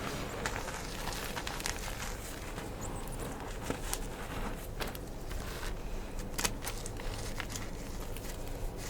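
Gym chalk being crushed: a steady crumbly crackle with a few sharper snaps as pieces break.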